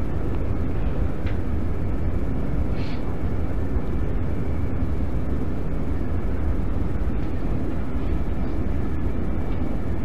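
Steady low rumble of background room noise, strongest in the deep bass, with no speech.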